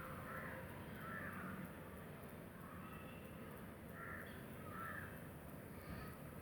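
Faint bird calls over a quiet background: four short calls in two pairs, the second pair about three seconds after the first.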